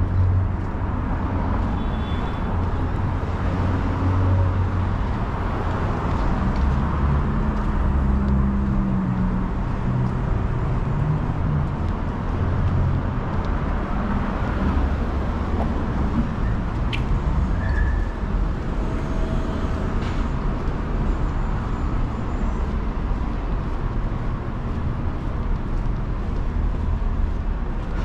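City street traffic: a steady wash of passing cars, with a deeper engine rumble swelling and fading through the middle and a brief high chirp a little past halfway.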